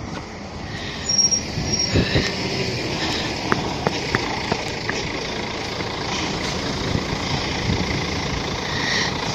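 Ikarbus IK-112 city bus pulling in and standing at the stop with its engine running, with a couple of short high squeaks about a second in and a few clicks.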